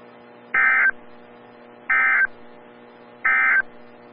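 NOAA Weather Radio's Emergency Alert System end-of-message signal: three short bursts of warbling digital data tones, a little over a second apart, marking the close of the weekly test broadcast. A faint steady hum from the radio sits under the bursts.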